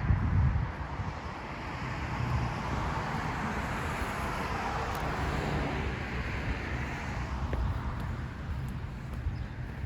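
A road vehicle passing, its noise swelling around the middle and fading, over a low rumble of wind on the microphone.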